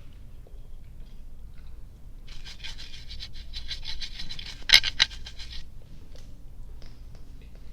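Chewing of soft, sticky gummy candy: a run of quick, sticky clicking mouth sounds for about three seconds, with one sharper click near the end of the run.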